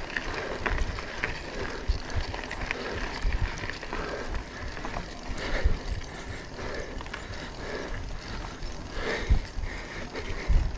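Mountain bike ridden over rough trail: a continuous rattle of tyres, frame and chain, with irregular knocks from bumps and scattered clicks.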